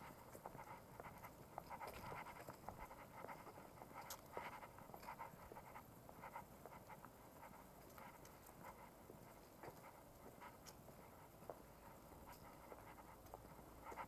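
Faint movement noise from travelling slowly along a wet paved path: light, irregular ticks and rustle, with no clear single source.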